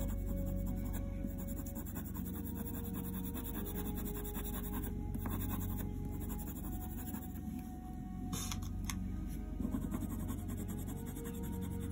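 Faber-Castell Polychromos ivory coloured pencil rubbed over hot-pressed watercolour paper in quick, small back-and-forth strokes, blending the ginger layers beneath. Soft ambient music sits underneath.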